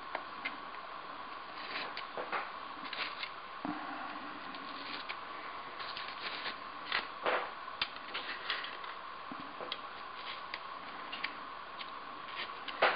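Scattered small clicks and scratches of fingers handling a dried beetle specimen and insect pins on a foam mounting board, over a steady faint hum.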